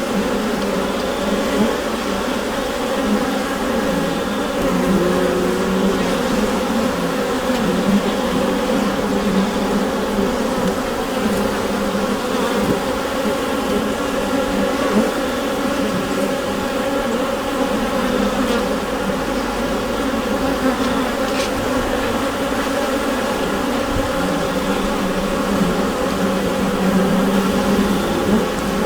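Honeybee colony humming inside the hive: a dense, steady drone of many wingbeats, with overlapping tones that waver slightly.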